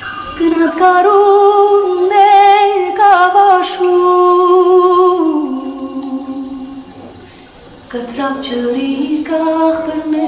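A solo woman's voice singing an unaccompanied melody in long held notes with vibrato; the phrase fades out past the middle and a new phrase begins about eight seconds in.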